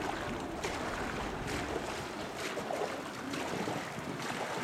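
Canoe paddles dipping and pulling through the water in quick regular strokes, a splash a little more often than once a second, as two paddlers drive an open canoe at racing pace.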